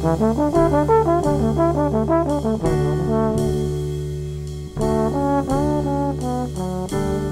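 Trombone soloing over a jazz combo of upright bass, keyboard and drums. It plays a quick run of notes with bends, pauses while the backing holds, then comes back with another short phrase about two thirds of the way through.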